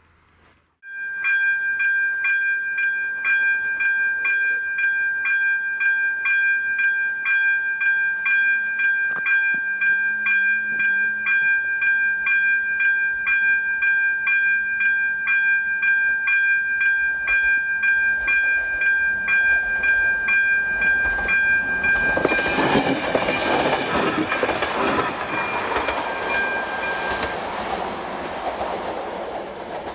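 AŽD 97 level-crossing signal's ZV-02 electronic warning bell ringing, a bright ringing tone with rapid, even strikes, starting suddenly about a second in. About twenty-two seconds in, a passing train's rumble and wheel clatter over the rails rises above the bell, which stops a few seconds later.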